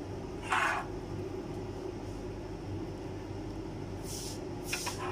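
A steady low mechanical hum, with a short noisy rustle or scrape about half a second in and a few more near the end.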